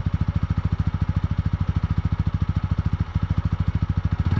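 BS6 TVS Apache RTR 200 4V's single-cylinder engine idling at the exhaust silencer: a steady, even beat of about fifteen exhaust pulses a second.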